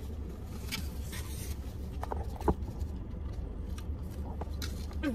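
Steady low rumble of a car, with light scraping and rustling and a few small clicks; a short sharp sound about two and a half seconds in.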